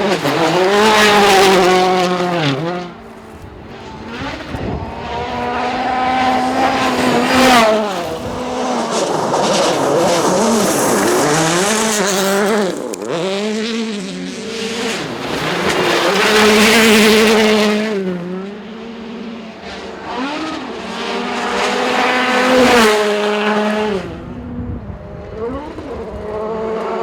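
Rally cars driven flat out on a gravel stage, passing one after another, about five times in all. Each engine revs hard, with pitch rising and dropping through gear changes and lifts.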